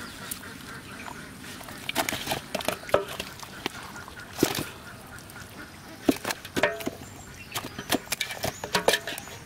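Ducks quacking in short, irregular calls that come in clusters, over small crackles and rustles of a net being picked apart by hand.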